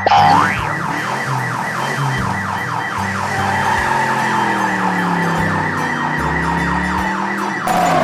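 Electronic alarm sound effect: a fast warbling siren whose pitch sweeps up over and over, about four to five times a second, then cuts off abruptly near the end.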